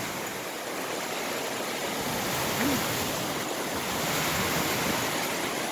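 Fast-running creek water rushing steadily, a constant wash of noise.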